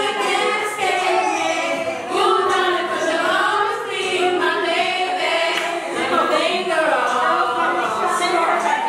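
A group of female voices singing together, several voices overlapping.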